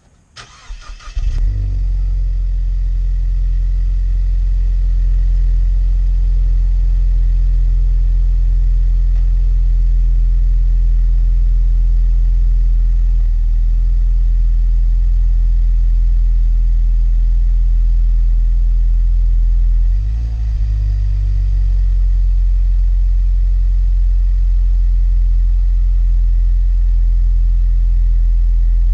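A 2017 Ford Mustang EcoBoost's 2.3-litre turbocharged four-cylinder, heard through a Borla touring exhaust, is started. It cranks briefly, catches about a second in, then idles steadily. There is a short dip and wobble in the idle about two-thirds of the way through.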